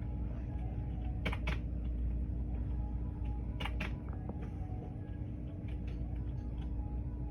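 A few sharp key clicks, two quick pairs about a second and a quarter and nearly four seconds in, with fainter ticks between, over a steady low hum.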